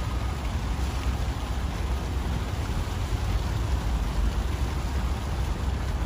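Steady outdoor noise: an even rushing hiss over a low, fluctuating rumble, with no distinct events.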